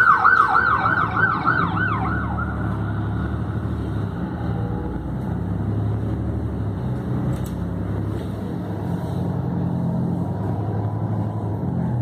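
An emergency-vehicle siren on its fast yelp setting, sweeping up and down about four or five times a second, fades out about two seconds in. Under and after it runs the steady drone of the city bus's engine and tyres on the wet road, heard from inside the bus.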